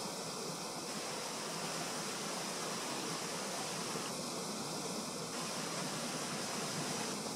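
Steady, even hiss of outdoor background noise, with no distinct events; the beetle itself is not heard.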